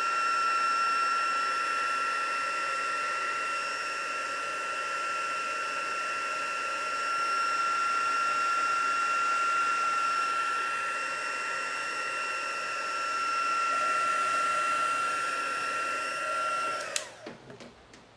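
Handheld craft heat tool running, a steady whine over rushing air as it dries the freshly painted card. Near the end it is switched off and the whine falls away, followed by a click or two.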